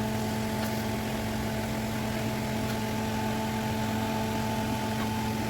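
Steady hum of a kitchen appliance motor, one low tone with several fainter higher tones above it, holding even with no change.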